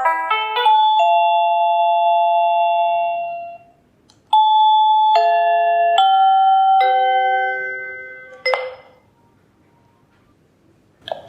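Electronic doorbell chime. A held two-tone chime fades out over about three seconds, then a four-note chime melody follows, each note about a second apart and ringing on into the next. A sharp click comes near the end of the melody, and a brief knock comes just before the end.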